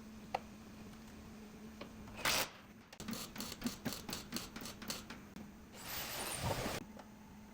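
A run of quick clicks and light knocks, with a short burst of rushing noise about six seconds in, over a steady low hum.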